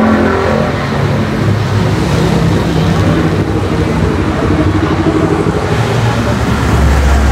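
Steady road traffic: vehicle engines running past in a continuous low rumble. A heavier engine rumble swells near the end.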